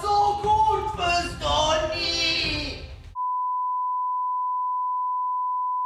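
Voices with drawn-out, sung-sounding pitch for about the first three seconds, cut off abruptly; then a steady single-pitched test-tone beep starts and holds without change.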